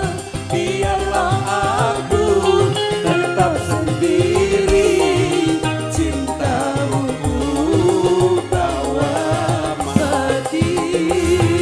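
Live campursari band playing, with keyboard and drums under a duet of a woman and a man singing into microphones through the PA.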